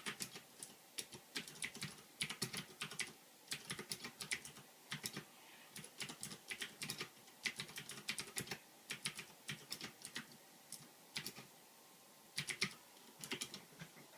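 Typing on a Ducky Shine 2 mechanical keyboard with Cherry MX Blue switches: irregular runs of clicky keystrokes, with a short pause about three-quarters of the way through.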